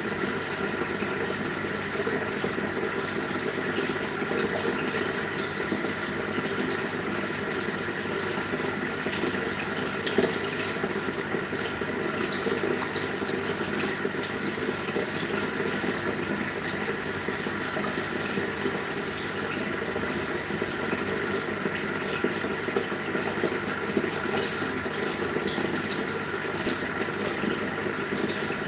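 Aquarium air stones bubbling steadily, a continuous rush of fine bubbles with a faint steady hum under it.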